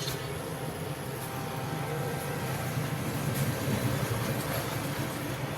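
Home Power UNO inverter/UPS running on battery with a 200-watt load, giving a steady low hum.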